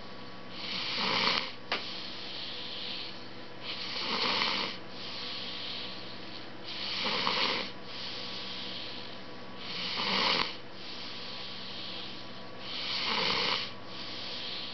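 Snoring: a loud snore about every three seconds, five in all, with softer breathing noise in between. A single sharp click sounds just under two seconds in.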